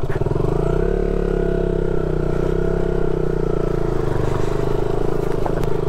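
KTM Duke motorcycle engine running at low revs, rising slightly in the first second, then holding steady as the bike rolls slowly over a rough dirt track. A few light clicks near the end.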